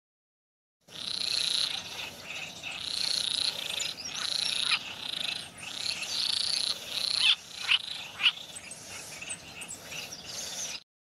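A chorus of frogs calling: many high, trilling calls repeating and overlapping, with a few short, sharp chirps among them. It starts abruptly about a second in.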